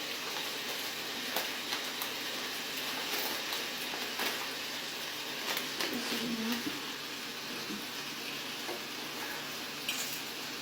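Bacon sizzling in a frying pan as it is stirred, with scattered clicks of the utensil against the pan.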